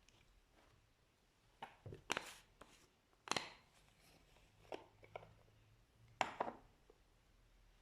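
Slime being squished, giving a few irregular short squelches and pops with quiet gaps between them.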